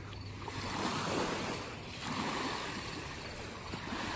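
Small waves lapping and washing up onto a sandy shore, rising and falling in gentle surges.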